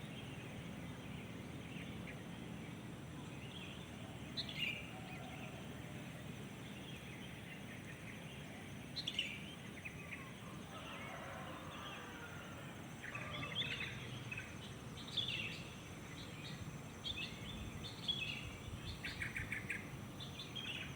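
Songbirds chirping and calling over a steady low background hum. The calls come only now and then at first and grow busier over the second half, with quick trills near the end.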